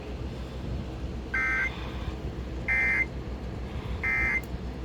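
Emergency Alert System end-of-message signal: three short bursts of digital data tones (the SAME 'NNNN' code), about 1.3 seconds apart, closing the flash flood warning. A low steady hum runs underneath.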